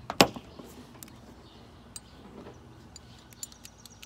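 A sharp metal click about a quarter second in, followed by a few faint scattered ticks, from a ratchet and 10 mm socket and the bolts and nylon lock nuts being handled.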